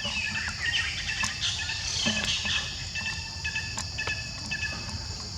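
Baby monkey giving short, high-pitched chirping squeaks, thickest in the first three seconds, over a steady high drone of insects.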